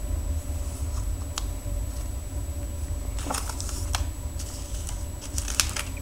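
Small plastic zip bags of knife hardware being handled and shifted on a table: a few faint crinkles and light clicks over a steady low hum.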